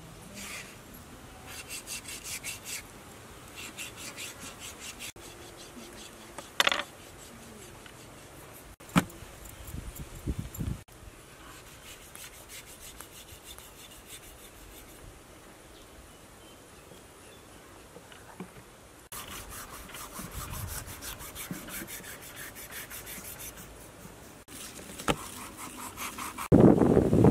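A cleaver blade scraping across the skin of a raw pig's head in rapid repeated strokes, with the sound breaking off and resuming several times. Near the end a much louder rushing noise comes in.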